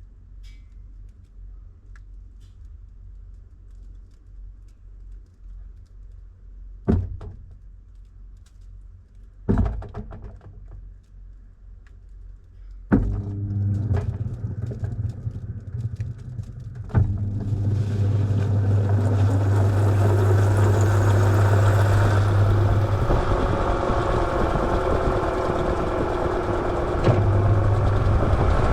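Washing machine changing stage: a few sharp clicks and thunks, then a steady low hum starts about halfway in, joined a few seconds later by a loud, steady rushing that holds to the end.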